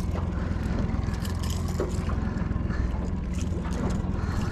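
Steady low rumble aboard a small aluminium fishing boat, with a few faint light clicks.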